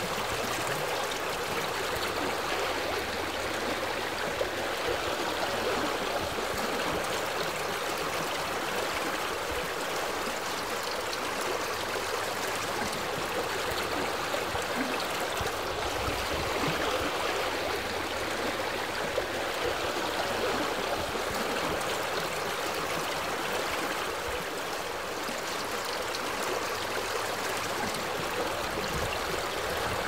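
A jungle stream flowing steadily, with an even rush of running water.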